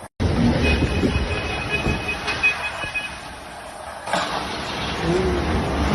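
Strong storm wind buffeting the microphone in a low, uneven rumble, with a thin steady high tone, like an alarm or beeper, held for about two seconds near the start.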